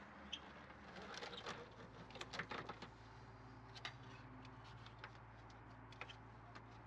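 Faint scattered clicks and taps over a low steady hum, as hands work the plastic end cap and hose of a tube-style RV sewer hose carrier. The clicks cluster about a second in and recur a few times later.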